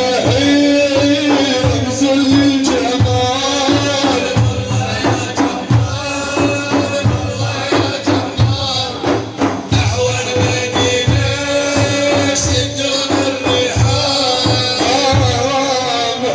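Instrumental interlude of Middle Eastern praise music: a held melody line over a steady, fast rhythm of hand percussion, with no voice.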